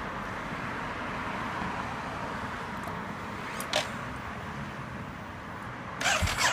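Faint steady background hum with a single click about halfway through, then near the end a short burst of clattering from the Ducati Monster 1200S as its starter begins to crank the engine.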